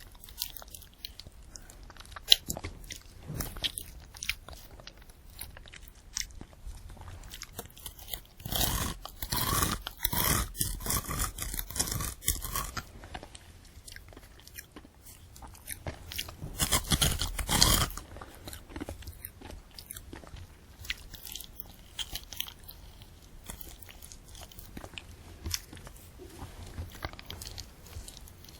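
Close-miked eating of a candy apple: the hard candy shell and the apple crunching and being chewed. There are small crisp clicks throughout, with two louder runs of crunching, one about a third of the way in and one a little past the middle.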